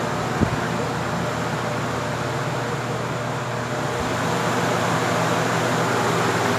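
Arge 50 cm oscillating wall fan running: a steady rush of air from the blades over a low motor hum, growing slightly louder in the second half.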